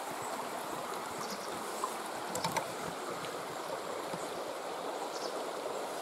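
Shallow stream running over stones, a steady rush of water, with a few faint knocks about two and a half seconds in.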